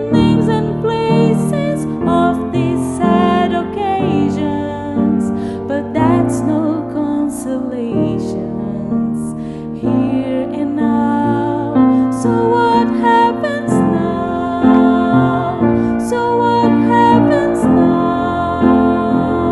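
A woman singing a slow, tender ballad over piano accompaniment, with vibrato on the held notes.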